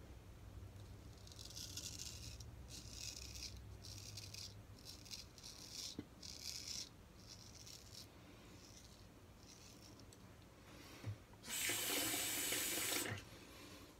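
Straight razor scraping through four days' beard growth under lather: a quick run of short, raspy strokes through the first seven seconds or so, then a few fainter ones. Near the end, a brief loud rushing noise lasting under two seconds.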